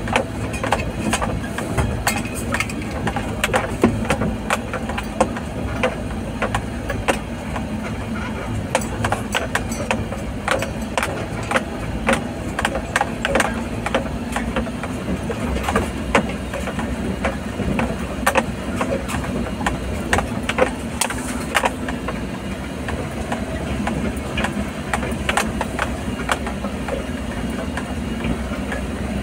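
A vehicle's engine running steadily under load, heard from inside the cab as it crawls up a steep, rough dirt track. Frequent short clicks and knocks, typical of the body rattling over the bumpy ground, sound throughout.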